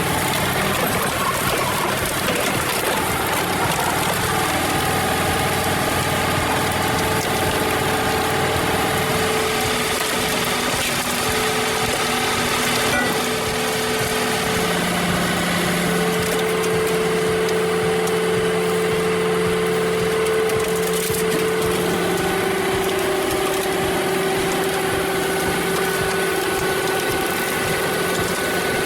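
Engine-driven machinery running steadily and loudly, its engine pitch stepping up and down now and then as it works under load.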